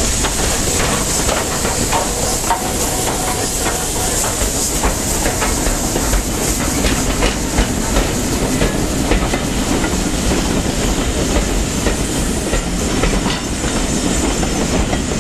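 Southern Railway 'Lord Nelson' class 4-6-0 No. 850 steam locomotive and its coaches passing close by, wheels clicking and clattering over the rail joints, over a steady hiss.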